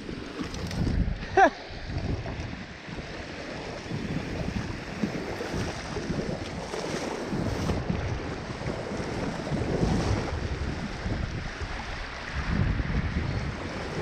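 Rushing creek water with gusty wind buffeting the microphone, and splashing from wading into the shallow flow near the end.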